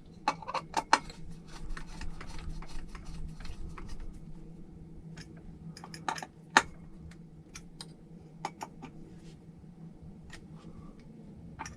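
Small parts being handled and fitted by hand on a workbench: irregular sharp clicks and taps. The loudest are a cluster about a second in and a single click at about six and a half seconds.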